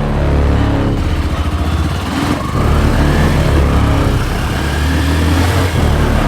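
Yamaha FZ V4 motorcycle's 149 cc single-cylinder engine running, its pitch rising a couple of seconds in.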